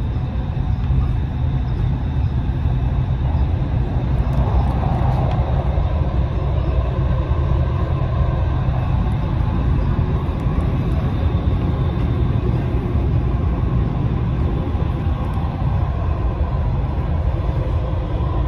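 Dubai Metro train running, heard from inside the front car: a steady low rumble.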